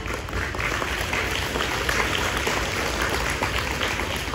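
Audience applauding, a steady patter of many people clapping.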